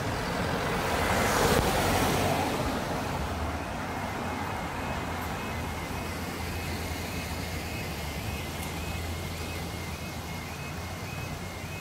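A road vehicle passes close over a level crossing about a second or two in, over a steady low traffic hum. From about five seconds in, the crossing's two-tone warning alarm sounds, stepping back and forth between a higher and a lower note: the signal that a train is coming and the barriers are lowering.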